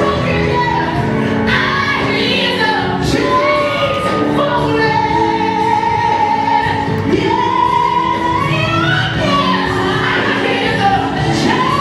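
Gospel singing with female voices and a choir over instrumental backing, sustained melodic lines without a break.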